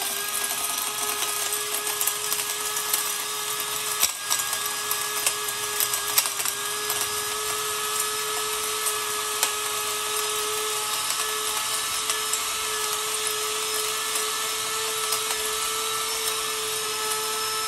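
Silver Crest electric spice grinder running at very high speed while grinding chunks of marble stone. The motor gives a steady whine, with scattered rattling clicks from the stone pieces inside.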